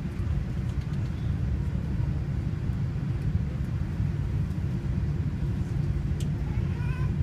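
Cabin noise inside an Airbus A380 moving along the runway: a steady low rumble from its engines and rolling wheels.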